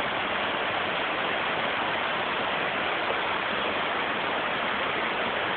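River water running in a thin sheet down a broad, smooth, sloping rock slab, a natural rock water slide. A steady, even rush of water.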